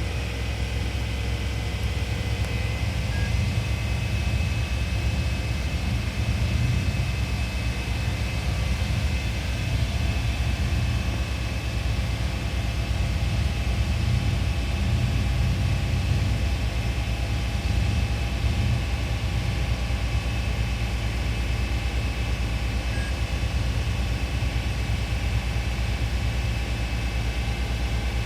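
The 6.0-litre gasoline V8 of a 2003 2500HD pickup running steadily with a misfire.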